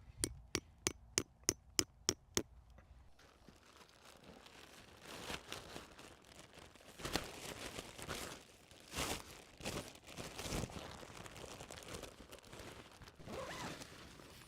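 A quick run of about nine sharp clicks near the start, then irregular rustling and crinkling as tent fabric is handled.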